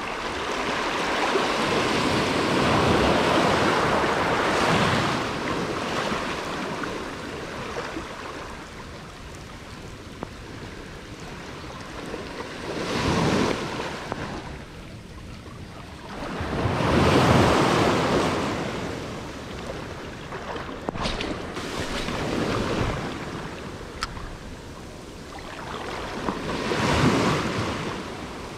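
Small waves washing up onto a sandy beach, each surge swelling and fading, four times or so.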